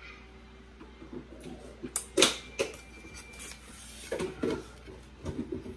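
A handful of short clicks and knocks, the loudest about two seconds in, from small kitchen items being handled on a counter.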